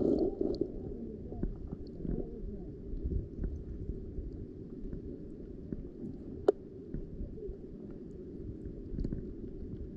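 Muffled underwater sound of shallow seawater: a low, steady rumbling wash with faint scattered clicks, a louder gurgle at the very start, and one sharp click about six and a half seconds in.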